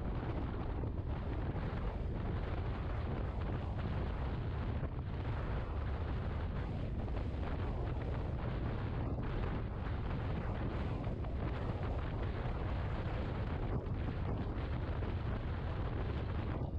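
Steady low wind roar on the microphone while riding a Yamaha XMAX 250 maxi scooter at road speed, with the rumble of the engine and tyres on the asphalt underneath.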